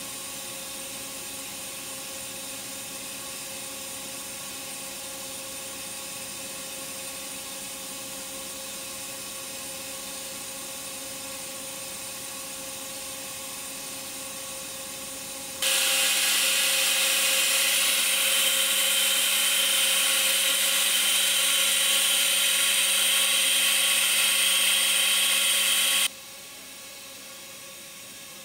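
Friction stir welding machine running, its spinning tool in the aluminium seam giving a steady whine with several held tones. About halfway through it turns suddenly much louder and brighter for about ten seconds, then drops back just as suddenly.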